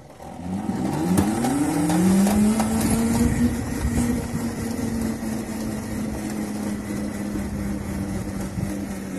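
Kunray 3000 W, 72 V brushless motor of an electric go-kart whining as the kart accelerates from a standstill, over road and drivetrain rumble. The pitch rises for about two seconds and then holds steady, because the kart is left in its low speed setting and levels off just under 10 mph.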